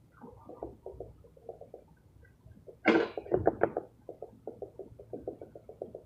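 Metal trowel scraping skim coat across a rough concrete ceiling in quick, repeated strokes, about four or five a second, with a louder, sharper scrape about three seconds in.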